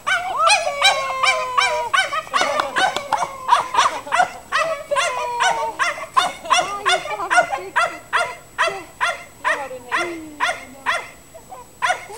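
Kromfohrländer barking and yelping excitedly, about three sharp high-pitched barks a second, mixed with a few drawn-out whines, stopping just before the end.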